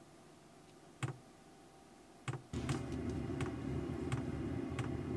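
A campervan's diesel air heater starting up. Sharp separate ticks come from its fuel pump, and about two and a half seconds in its fan starts with a steady hum, the ticking carrying on over it.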